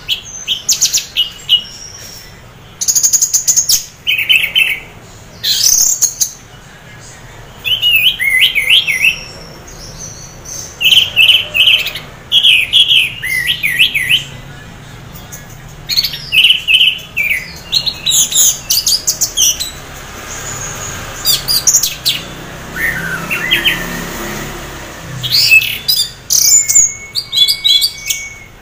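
Caged orange-headed thrush singing in a 'teler', half-breeding-condition mood: loud, varied phrases of whistles and chirps, each about a second long, repeated with short pauses, with a quieter spell about two-thirds of the way through.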